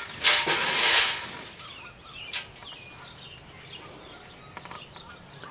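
A loud rustling, scraping noise lasting about a second, then small birds chirping intermittently in the background.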